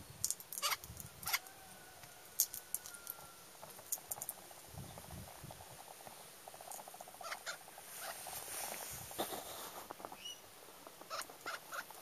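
Australian king parrot cracking sunflower seeds in its beak: irregular sharp cracks and clicks, thickest in the first few seconds and again near the end, with a softer rustling stretch in between.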